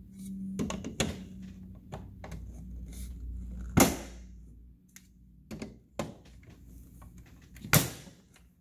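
Hard plastic toy playset pieces being handled and snapped into place: a scatter of clicks and knocks, with two louder, sharper snaps, one near the middle and one near the end.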